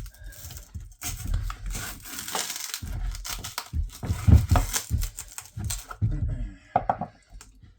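Insulation foam being torn and crumpled away from a hot water boiler tank by hand. It makes a dense rustling and tearing noise with scattered knocks from handling, dying down near the end.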